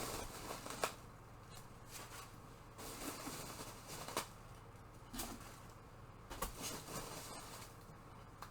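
Intermittent rustling and scraping with sharp clicks as packing material is handled and lifted out of a shipping box, the loudest click about a second in. A faint steady low hum runs underneath.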